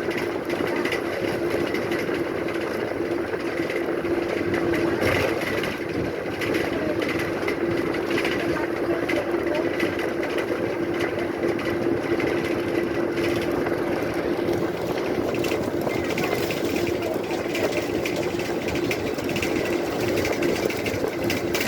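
Tamil Nadu government bus engine running: a steady drone with a constant mid-pitched hum over broad noise.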